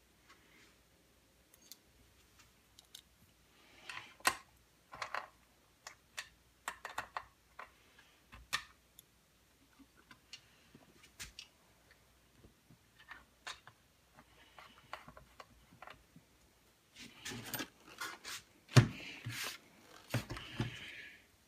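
Scattered clicks, scrapes and light knocks of hand work on a Husqvarna 181 chainsaw: a screwdriver working screws into the handle and its rubber mounts, with the plastic housing being handled. Near the end the saw is moved and turned on the bench, giving a busier run of knocks, the loudest a single sharp knock.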